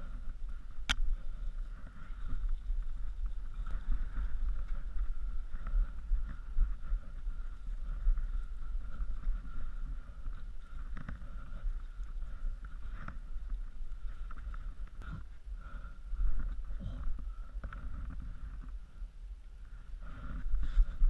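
Mountain bike riding down a leaf-covered dirt trail, heard through a helmet camera: a steady muffled rumble of wind and tyres over the ground, with scattered knocks and rattles of the bike over bumps and one sharp click about a second in.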